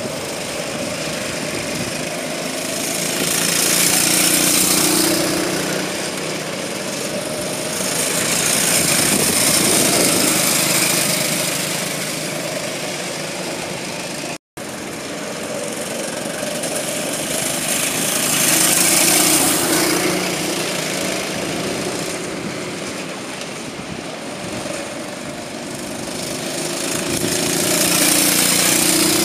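Racing kart engines running as karts lap the circuit, the sound swelling and fading four times as karts come past. There is a brief break in the sound about halfway through.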